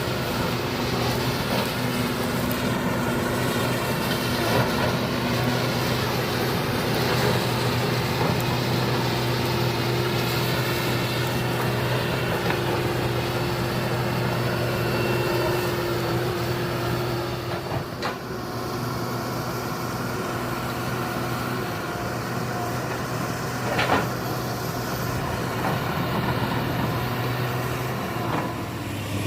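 Hydraulic excavator's diesel engine running steadily under work, with two sharp knocks about six seconds apart past the middle.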